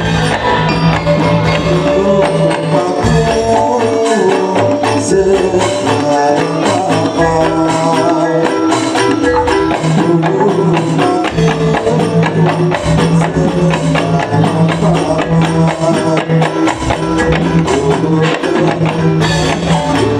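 Dolalak dance accompaniment music over a loudspeaker: a keyboard melody and bass over a fast, steady percussion beat, playing without a break.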